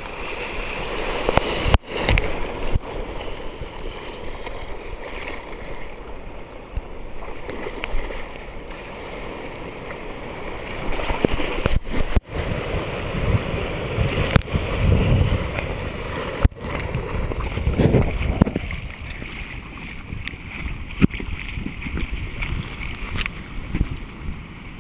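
Sea water sloshing and small waves splashing around a camera at the waterline, with the splashing of Staffordshire bull terriers swimming through the surf. A few brief gaps break it up, and it grows quieter toward the end.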